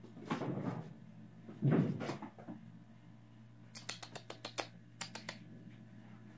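A Lykoi kitten playing with a rubber flip-flop on a hardwood floor: two soft scuffing rushes in the first two seconds, then a quick run of sharp clicks and taps about four to five seconds in as it paws and pushes the sandal across the boards.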